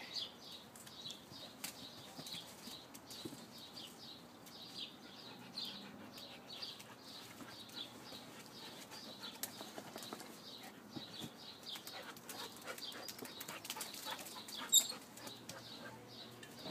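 Huskies scrabbling and pawing in mud and against a loose fabric cover: scattered rustles and scrapes, with one sharper tick about fifteen seconds in. Faint high chirps repeat in the background.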